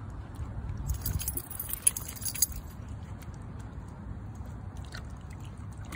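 Metal dog collar tags jingling and clinking for about a second and a half, starting about a second in, over a steady low rumble.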